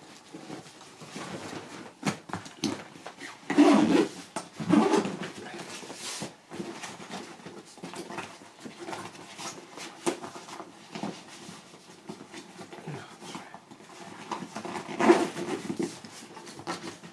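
A dog's short vocal sounds, a couple at about four to five seconds in and again near the end, over scattered light knocks and rustling of gear being packed.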